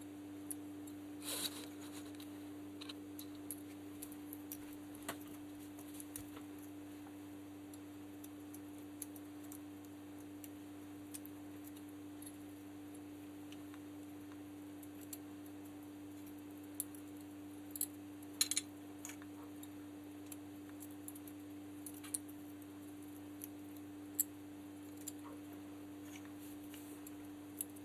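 Faint small clicks and taps of a paring knife and olive pieces being cut by hand and dropped onto a plate, with a few sharper clicks about a second in and near the middle. A steady low hum runs underneath.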